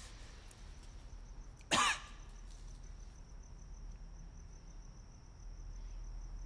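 A single short cough about two seconds in, then a faint, steady, high-pitched chirping of crickets: the stock awkward-silence cue.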